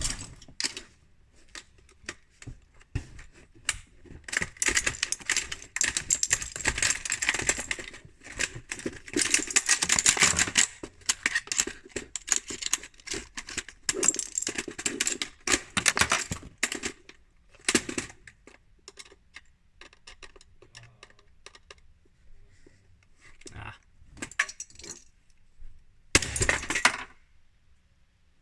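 Plastic keys and parts of a cheap 60% mechanical keyboard clattering in rapid clicks, in a dense run lasting several seconds, then shorter bursts near the end.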